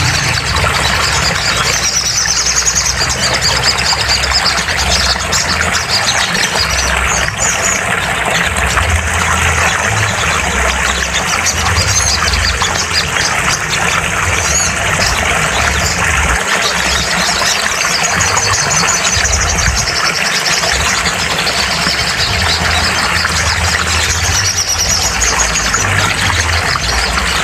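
Recorded birdsong: a dense, steady stream of high chirps and rapid trills from small songbirds, played as a sogon bird therapy track to start a caged bird singing, over a low background rumble.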